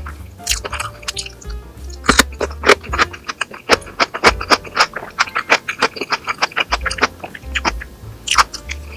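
Background music with close-miked eating sounds: a fast run of sharp clicks, several a second, starting about two seconds in, from someone chewing food.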